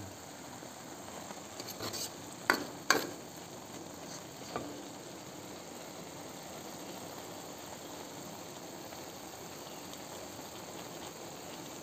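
Stir-fried genjer, green chilies and anchovies sizzling in a metal wok with a steady hiss. A spatula knocks against the wok twice in quick succession a little over two seconds in, with a few fainter taps around it.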